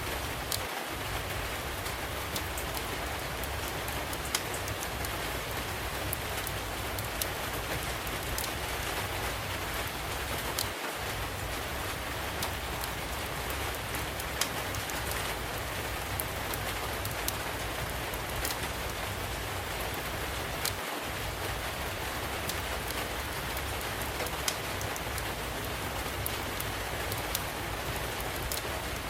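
Steady rain hiss with a low rumble beneath it, mixed with the scattered sharp pops and crackles of a wood fire burning in a fireplace.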